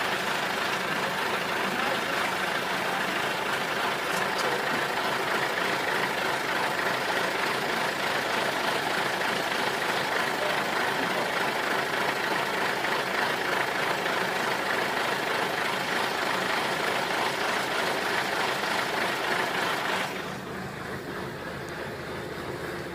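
Truck driving on a rough road: steady engine and road noise. About twenty seconds in it becomes quieter and duller.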